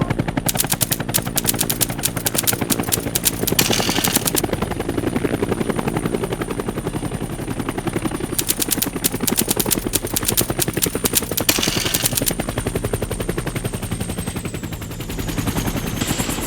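Rapid automatic gunfire as a battle sound effect: a fast, even rattle of shots, loudest in two stretches, from about half a second to four seconds in and from about eight to twelve seconds in, over a steady high whistle that slides lower near the end.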